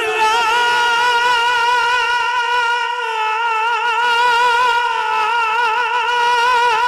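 A man singing a naat unaccompanied, holding one long high note with a slight waver.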